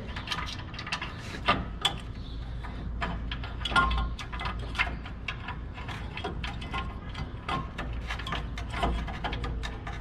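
Irregular metallic clicking and clinking of a ratchet wrench and tools working an 18 mm brake caliper bolt, with a few sharper knocks, over a low steady hum.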